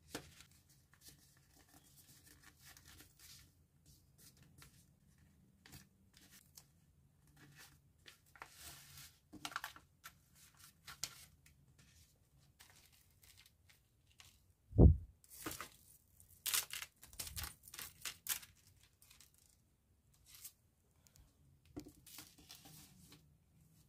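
Paper packaging being handled on a tabletop: a white paper bag and envelope rustle and crinkle, with scattered small taps and clicks. About fifteen seconds in there is one dull thump, the loudest sound, followed by a few seconds of sharper paper rustling.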